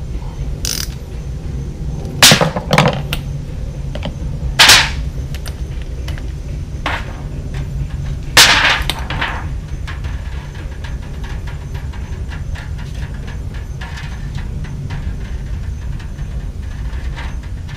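Sharp clacks and knocks, about six in all, loudest a little over two, four and a half and eight seconds in, as parts of a Briggs & Stratton lawn mower carburetor are worked loose by hand and set down on a foil pan. A steady low hum runs underneath.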